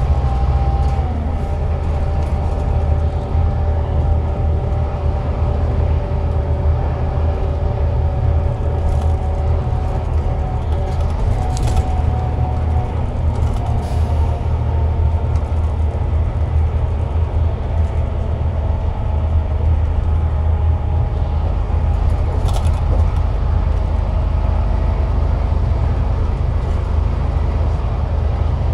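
Scania K360 bus's DC13 straight-six diesel and drivetrain running under way: a heavy steady drone with several gear-whine tones that dip slightly in pitch about a second in and again midway. A few brief sharp rattles or clicks come through in the middle and later.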